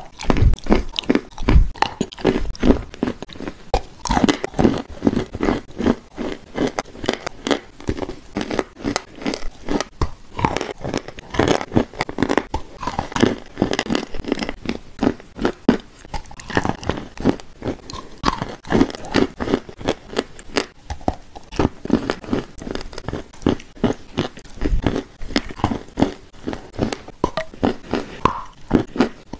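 A person biting and chewing shortbread cookies coated in wet clay paste: a dense, steady run of crisp crunches.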